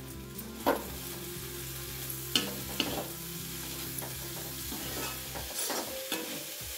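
Green peas frying and sizzling in a metal kadai while a slotted metal spoon stirs them. The spoon scrapes the pan and knocks sharply against it about five times.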